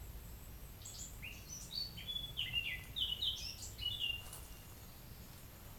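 A songbird singing one quick phrase of short, high chirping notes, starting about a second in and ending a little past the middle.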